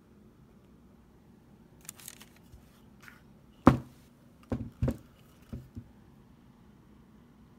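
Handling noise from a restored spike hammer being moved over a magazine on a table: a light paper rustle, then one loud knock about halfway through and a few softer knocks after it.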